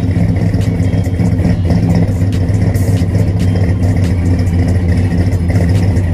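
LS V8 in a swapped Chevrolet S10 idling at the exhaust tip: a steady, loud, deep exhaust note with a fast pulse.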